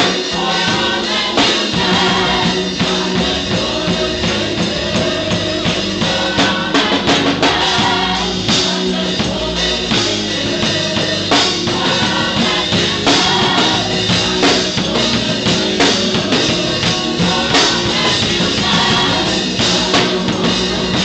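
Church gospel choir singing an upbeat song together over a live drum kit and band.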